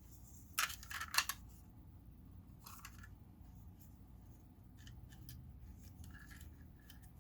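Hard plastic parts of a wireless mouse being handled: a few sharp clicks and snaps about a second in, a short scrape near three seconds, then light scattered ticks, as the mouse's detachable top cover is fitted and turned over.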